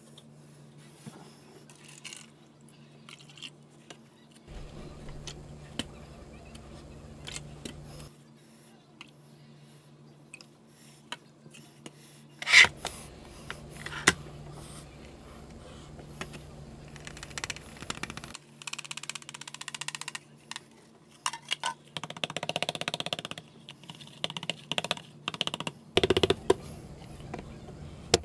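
Clicks, taps and knocks of plastic cups and a digital kitchen scale being handled and set down on a cutting mat, with a few short scraping and rustling stretches. One sharp knock about twelve seconds in is the loudest.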